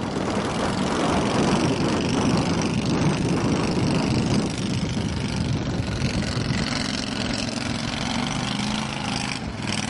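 Air-cooled engine of a surface-drive mud motor running under load, pushing a jon boat through shallow mud and water. The engine note eases a little about halfway through and settles into a steadier hum.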